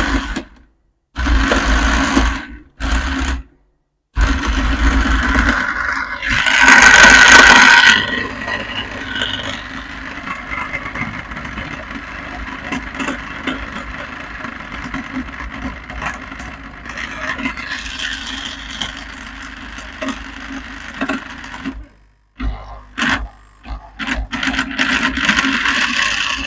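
Juicer-blender motor switched on and running in spurts: it starts and cuts out several times, runs loudest for a couple of seconds about six seconds in, runs on more steadily, then stops and gives a few short bursts near the end. The stop-start running is the fault being shown: the machine runs slowly and stalls once load comes on.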